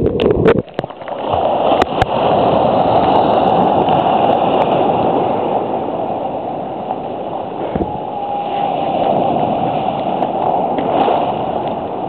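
Shallow sea surf foaming and washing around a camera held at the waterline: a steady rushing, gurgling hiss of breaking waves. A few sharp knocks and splashes of water against the camera come in the first second.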